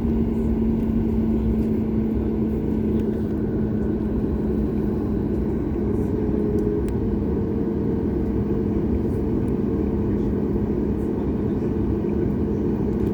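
Cabin noise of a Boeing 737 MAX 8 on the ground before takeoff, its CFM LEAP-1B engines at idle: a steady low drone with an unchanging hum tone.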